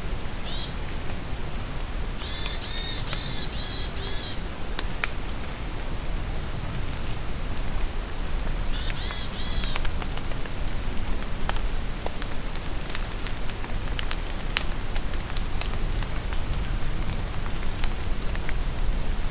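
Steady rain with scattered sharp drips, while a songbird sings two rapid trilled phrases, about two seconds in and again about nine seconds in, with short high chirps in between.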